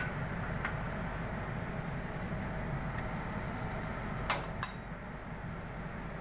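Steady low background hum with two sharp clicks a quarter-second apart about four seconds in.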